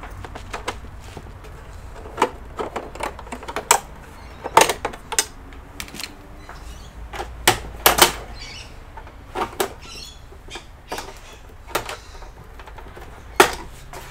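Irregular sharp clicks and knocks of plastic casing parts and small tools being handled as an all-in-one PC is taken apart, about a dozen in all.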